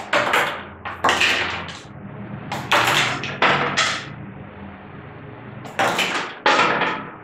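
Small plastic Happy Meal toys clattering and knocking on a tabletop in several quick bursts as pieces are launched and knocked off their stands.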